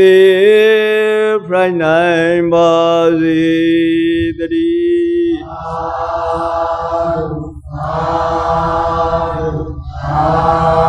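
Buddhist chanting by a male voice: long, drawn-out held notes with a wavering pitch, then from about halfway three phrases of chanting over a low, pulsing hum.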